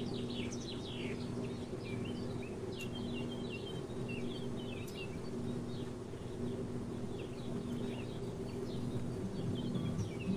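Birds chirping and twittering in many short calls over a steady low hum.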